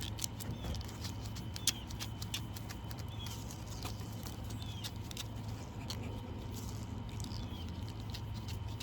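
Wires being pushed through plastic split loom tubing: scattered light clicks and rustling with a few faint short squeaks, over a steady low hum.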